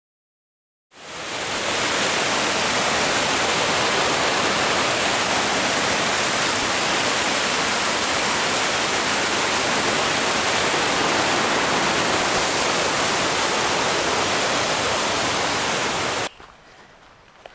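Fast white water of a mountain creek rushing over rocks, a steady, loud, even rush of water. It fades in about a second in and cuts off abruptly near the end.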